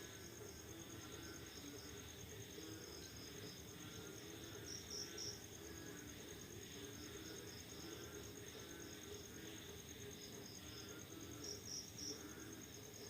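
Night insect and frog chorus after rain: crickets keep up a steady high trill, with louder chirps in groups of three a few times, over a low, continuous chorus of frogs calling.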